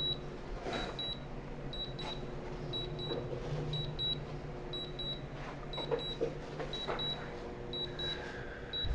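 Drone remote controller beeping a return-to-home alert: pairs of short high beeps repeating about once a second while the low-battery aircraft flies itself home. A steady low hum underneath.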